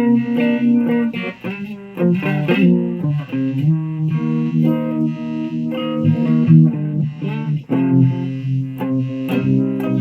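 Electric guitar played through a Fuzz Face fuzz pedal running on a run-down battery, ringing chords and single notes, with notes sliding in pitch a couple of seconds in.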